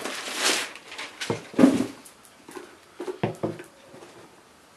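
Packing paper rustling in a cardboard shoebox, then a pair of leather work boots with white wedge soles set down with dull knocks on a wooden table, in two groups of knocks.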